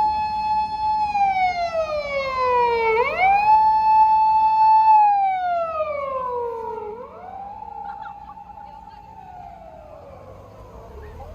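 Japanese police car siren wailing: each cycle rises quickly, holds its high note for about a second, then slides slowly down, repeating about every four seconds. It is loud at first and fades from about halfway through as the patrol car moves away.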